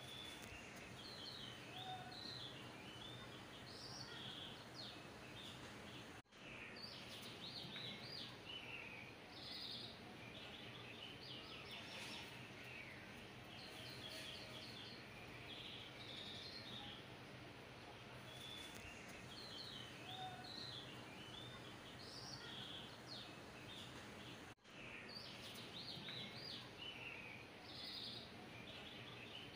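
Faint birdsong: many short, quick chirps over a low steady hum. The sound cuts out briefly twice.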